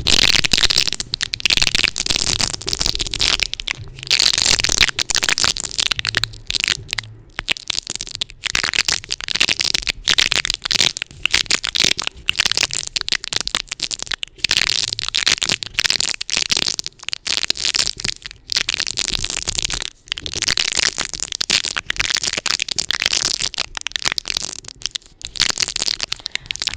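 Tape on a microphone handled fast and aggressively: dense, close-up crackling and crinkling with a few brief breaks.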